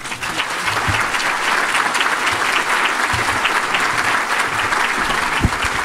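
An audience applauding, a steady patter of many hands clapping that starts abruptly at once.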